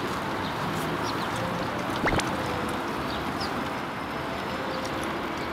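Steady outdoor background noise with a single sharp click about two seconds in.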